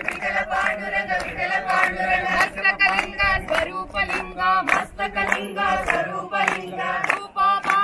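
A group of voices singing together with rhythmic hand clapping, about two to three claps a second.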